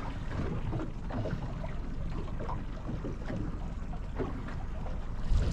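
Boat motor idling steadily in the background, with water lapping and slapping against the hull. A brief low thump near the end.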